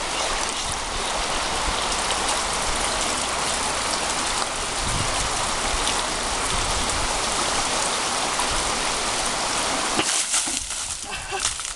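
Steady rushing of running water, then about ten seconds in a bucketful of water is poured from above and splashes down onto a person and the ground.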